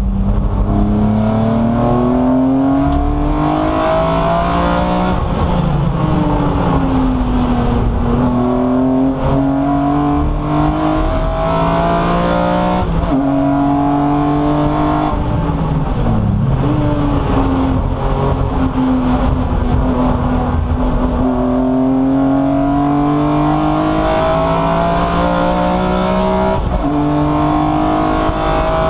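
BMW E36 M3 race car's straight-six engine heard from inside the cockpit, revving up through the gears under hard acceleration and dropping back at each shift and braking point, several times over.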